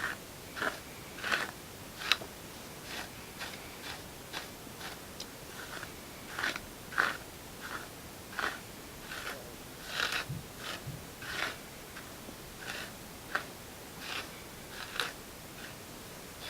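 Bamboo wide-tooth hairbrush stroked over backcombed hair, a series of short scratchy brushing sounds about one to two a second, smoothing the teased hair flat.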